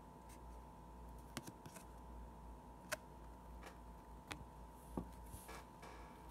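Hockey trading cards being handled and sorted by hand: faint, scattered clicks and taps of card edges, about half a dozen, over a low steady hum.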